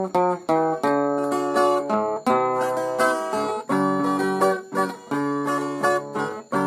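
Viola caipira playing an instrumental melody of plucked notes, a new note or chord roughly every half second.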